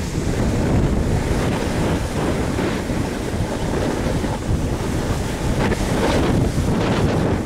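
Loud wind buffeting a moving camera's microphone as the filmer rides down a ski slope, a steady gusting rush mixed with the hiss of a snowboard sliding on snow.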